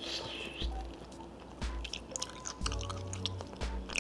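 Close-up eating sounds of gnawing a pig's trotter by hand: wet chewing and lip smacks with many small sharp clicks as skin and meat are pulled off the bone.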